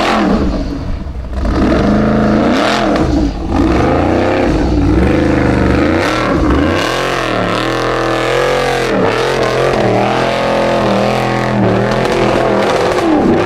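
Formula offroad buggy's engine revving hard, its pitch climbing and dropping again and again as the throttle is worked.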